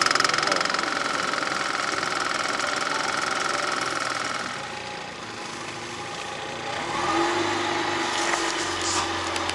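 Outboard motor of a small fishing boat running steadily. The sound changes about halfway through, dipping and then giving way to a lower, steady engine hum near the end.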